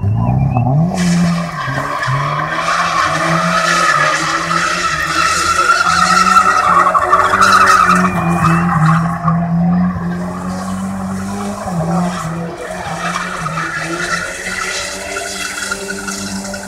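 Drift car sliding with its engine held at high revs and its tyres squealing in a continuous skid. The revs climb in the first second and then hold high; the sound is loudest in the middle and eases off later.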